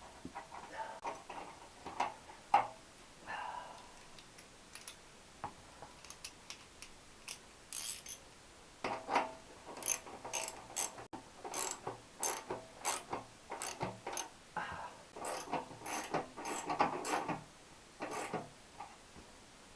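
Ratchet spanner clicking in short irregular runs, with scattered knocks and clinks of tools and metal parts.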